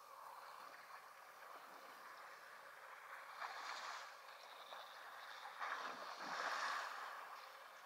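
African bush elephant splashing and sloshing water as it bathes in a waterhole. The splashing swells about three and a half seconds in and is loudest about six to seven seconds in, as it throws up a big spray.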